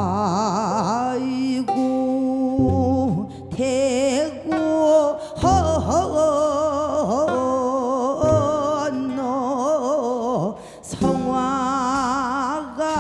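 A woman singing a Korean traditional song in the sori style into a microphone, with a wide, deep vibrato, over double bass and guitar accompaniment. Her phrases are broken by a few short breaths.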